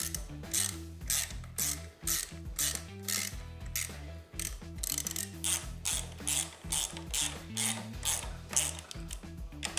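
Ratchet wrench clicking in regular strokes, about two a second, as the handlebar controls are bolted back on, over background music with a steady bass line.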